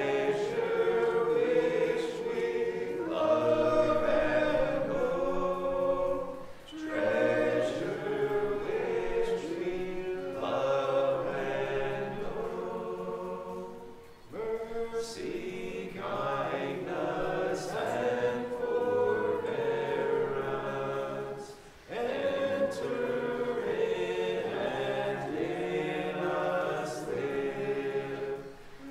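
Church congregation singing a hymn a cappella in several voice parts, in long phrases broken three times by brief pauses for breath.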